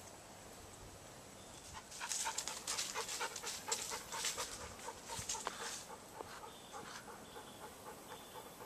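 A dog panting rapidly for a few seconds, starting about two seconds in and fading out after about six.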